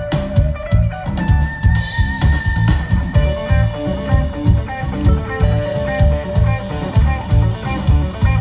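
Live rock band playing through a PA: electric guitars with held notes over bass and a drum kit keeping a steady beat.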